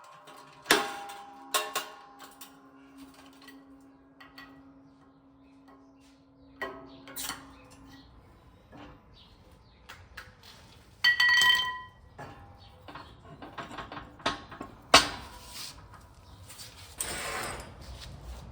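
Irregular metal knocks and clinks from hand tools working on the Jeep Dana 30 axle's U-joints, with one ringing metallic strike about eleven seconds in. A stuck U-joint is being worked on, one that a hammer and punch are not freeing.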